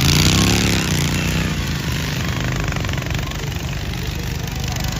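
Racing lawnmower engines running: one passes close in the first second, its pitch rising and then falling, followed by a steady drone of engines.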